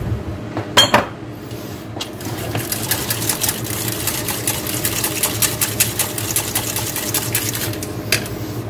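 Wire whisk stirring sauce in a stainless steel saucepan: a couple of sharp metal knocks about a second in, then from about two seconds in a rapid, continuous run of light metal clicks as the whisk beats against the pan.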